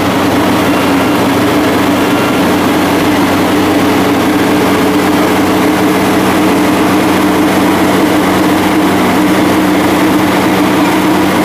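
Yanmar YH850 crawler rice combine harvester's diesel engine running loud and steady, holding one even speed throughout.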